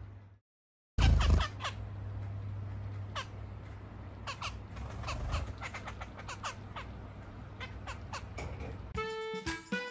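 Zebra finches giving many short, repeated nasal calls over a steady low hum. A loud knock about a second in, after a moment of silence, is the loudest sound.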